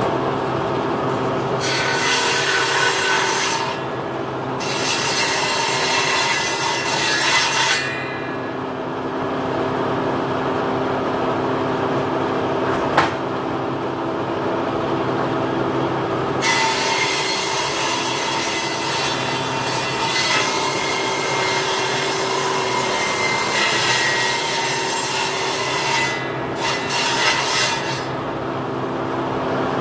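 Electric sander running steadily and abrading a wooden door leaf in several passes, each lasting a few seconds and one running about ten seconds, with the motor humming on between passes.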